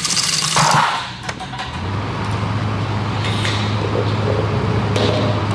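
Homemade Rube Goldberg machine running its chain reaction: scattered knocks and clatters as its parts tip, fall and roll, over a steady low hum that comes in about two seconds in.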